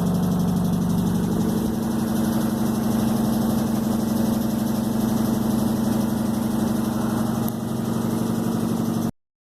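Electrolux washing machine running with a loud, steady motor drone and hum. The pitch rises slightly about two seconds in, and the sound cuts off abruptly near the end.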